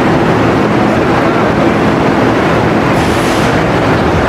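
Tennessee Tornado, an Arrow Dynamics steel roller coaster: its loaded train rolling past on the steel track, a steady, loud, continuous rolling noise from its wheels.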